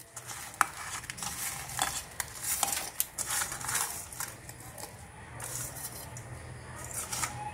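Irregular clinks and scrapes of steel on steel as lumps of jaggery are tipped and scraped from a steel bowl into a steel mixer-grinder jar, with a faint low hum underneath.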